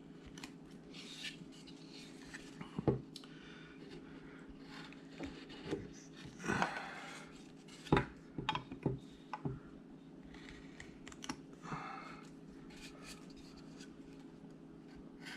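A large 3/8-inch (10 mm) V-tool cutting into wood by hand in short, scraping strokes, with a few sharp clicks among them.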